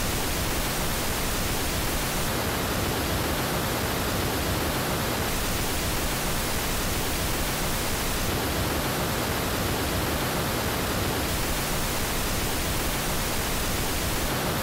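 Steady pink noise test signal, the original unfiltered reference, an even hiss spread across the whole range from deep lows to the top.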